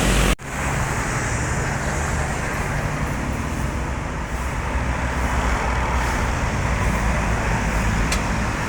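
Roadside traffic: a steady noise of tyres and engines from passing vehicles, with a low engine drone underneath. The sound cuts out for a moment about a third of a second in.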